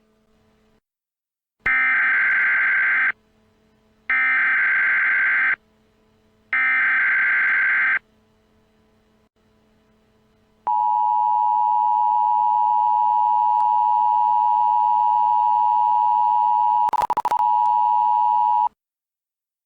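Emergency Alert System tones: three short screeching SAME header data bursts, about a second apart, then the steady two-tone EAS attention signal held for about eight seconds. The attention signal briefly breaks up near its end.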